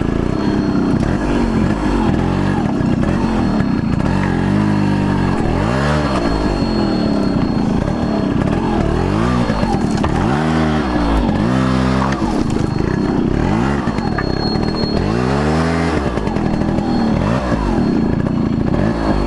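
Yamaha RX100's two-stroke single-cylinder engine running under load as the motorcycle is ridden. The revs rise and fall in repeated surges several times.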